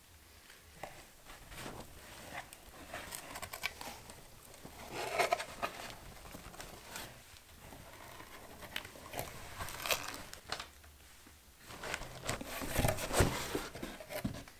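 Gloved hands slitting the packing tape on a cardboard shipping box with a folding knife, then pulling open the cardboard flaps and handling a smaller cardboard box inside: irregular scraping, rustling and cardboard taps, loudest about five seconds in and again near the end.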